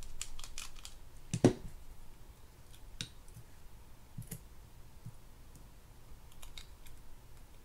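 Small metal clicks and taps of a mini screwdriver and tweezers working on a spinning reel's opened aluminium body, a cluster of quick clicks at first, then scattered ticks, with one louder knock about a second and a half in.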